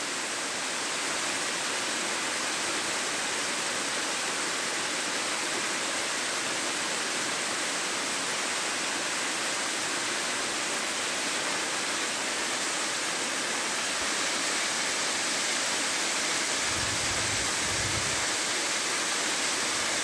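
Steady rush of a small waterfall splashing down rock into a pool, an even hiss of falling water. Near the end come a few brief low rumbles.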